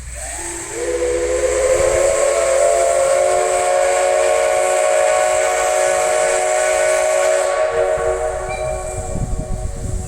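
Steam whistle of the SL Ginga's C58 239 steam locomotive sounding one long chord of several tones on departure, with a hiss of steam. It slides up in pitch as it opens, holds steady for about seven seconds, then cuts off, and the sound rings back off the surrounding mountains.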